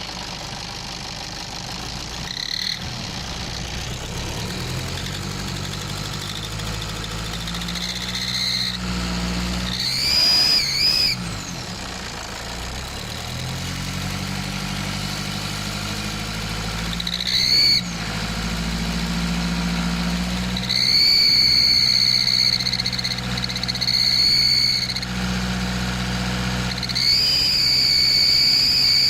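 Nissan Patrol's ZD30 turbo-diesel engine being revved several times, with a very loud, high-pitched squeal that comes in as the revs rise and drops away as they fall. The squeal shows up in short spells early on and holds longer near the end.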